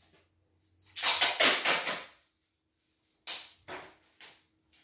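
A quick run of sharp clacks about a second in, followed by three separate knocks in the second half, over a faint steady hum.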